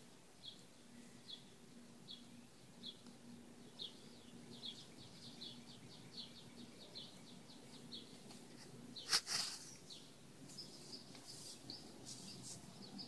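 A bird chirping faintly, a series of short high notes that come faster over the first several seconds and then fade, over a faint low hum. A brief clatter about nine seconds in.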